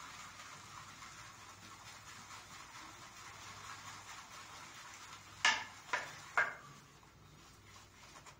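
Synthetic shaving brush swirling shaving soap into lather in a plastic bowl: a faint, steady swishing. About halfway through come three sharp knocks, about half a second apart.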